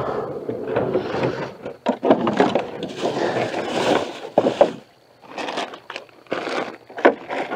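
Gear being shifted around inside a canoe: scraping and sharp knocks of rods and paddle against the hull, with a plastic bag crinkling.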